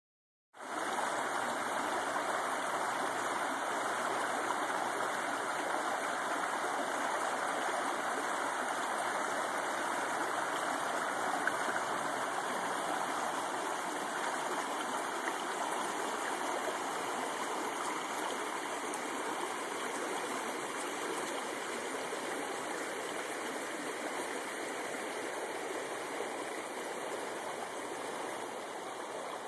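Shallow rocky mountain creek running over stones in riffles: a steady rush of water that eases slightly toward the end.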